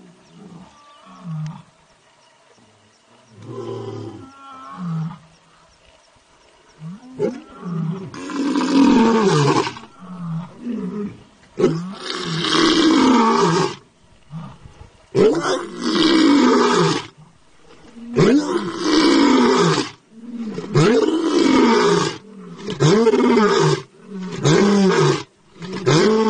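Tiger roaring in a series of loud, long calls, about eight of them, starting some seven seconds in and coming shorter and closer together toward the end.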